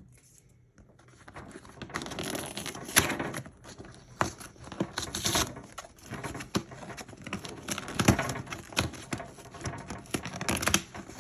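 Toothbrush retail packaging being handled, rustling and crinkling with scattered sharp clicks and light knocks.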